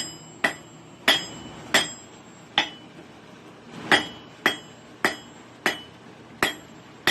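Blacksmith's hammer striking steel on an anvil while forging a spear point: about ten blows at an uneven pace, each with a bright metallic ring, and one longer pause about halfway through.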